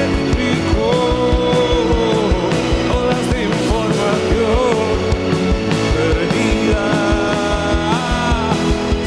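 Rock band playing live, drums keeping a steady beat under sustained melodic lines from guitars, keyboards and wordless voice.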